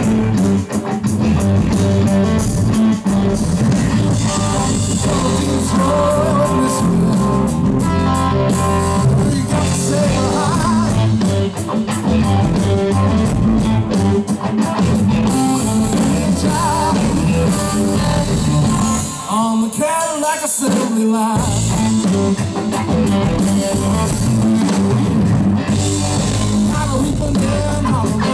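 Electric blues band playing live: a Stratocaster-style electric guitar leads over electric bass and drum kit in a blues-boogie groove. The bass and drums drop out for a moment about two-thirds of the way through while the guitar plays bent notes.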